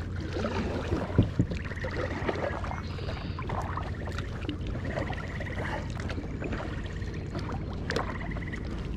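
Kayak paddle strokes through still pond water: the blades swishing and splashing, with a few light knocks.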